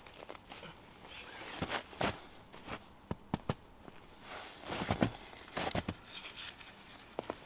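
Footsteps crunching in snow, uneven and irregular, with a few sharp clicks between them.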